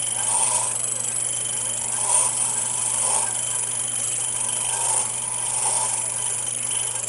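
CNC Taig lathe running as it rough-turns an ivory workpiece between centres: a steady motor hum and whine, with a sound that swells and fades about once a second as the tool makes its back-and-forth cutting passes.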